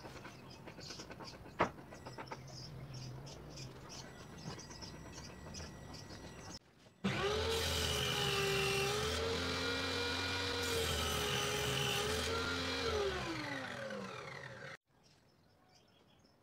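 Plywood board handled and slid on a table saw's top, with a sharp knock about a second and a half in. Then a homemade table saw runs and cuts through the plywood, its whine sagging in pitch twice as the blade takes the load. Near the end the whine falls steadily as the blade spins down.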